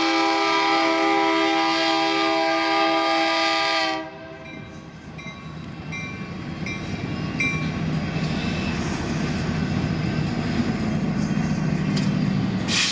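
Diesel locomotive air horn sounding a steady chord, cut off sharply about four seconds in. Then freight locomotives rumble past, their engines growing louder as the consist goes by.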